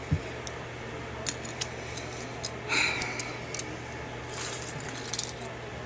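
Small metallic clicks and brief scrapes from handling a just-picked DOM pin-tumbler lock and its picking tools, over a steady low fan-like hum.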